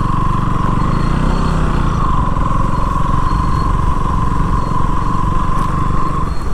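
KTM Duke motorcycle engine running steadily while riding, with a steady whine above the engine note.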